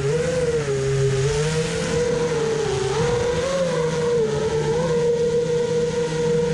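FPV quadcopter's motors whining, the pitch wavering up and down as the throttle changes.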